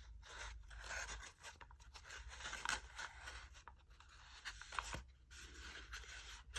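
Paper packaging of a shampoo bar being handled, giving faint, irregular rustling and scraping with a few small clicks.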